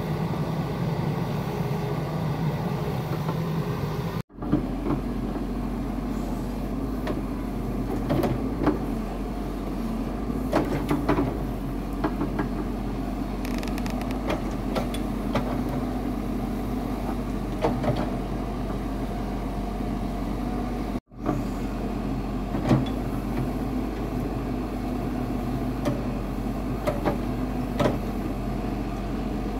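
Hitachi Zaxis mini excavator's diesel engine running steadily as it digs and spreads soil, with scattered knocks and clanks from the bucket working the dirt and stones.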